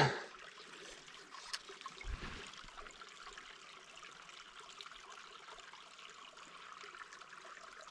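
Small mountain creek trickling faintly and steadily, with a soft low thump about two seconds in.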